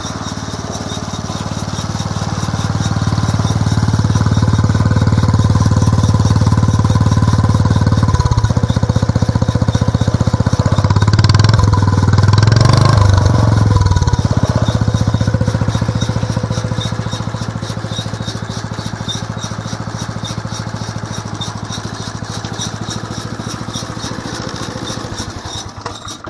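Home-built one-third scale hay baler running on its small 3.5 horsepower engine, a steady engine note with the baler's drive turning, louder through the middle with some irregular rattling about halfway through. The sound eases down and then stops abruptly at the very end as the engine is shut off.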